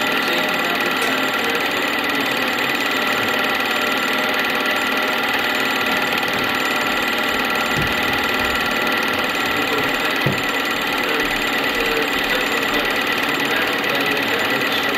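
Film projector running: a steady mechanical whir and clatter, with two brief faint clicks about eight and ten seconds in.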